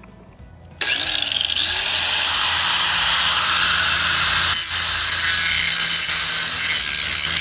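A power tool working on wood, starting abruptly about a second in and running steadily with a brief dip about halfway through.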